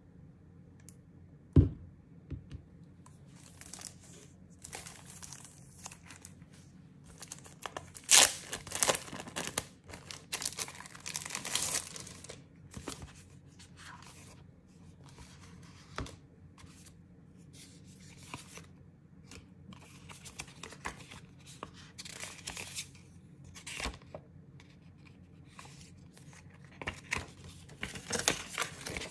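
Clear plastic film wrapper crinkling and tearing as it is pulled off a tablet case, in a run of loud rustling bursts through the middle. A sharp knock comes about a second and a half in, and paper rustles near the end.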